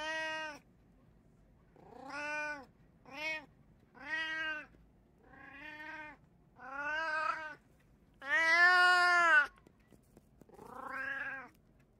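A cat meowing repeatedly: eight separate meows, each rising then falling in pitch, with the longest and loudest one near the end.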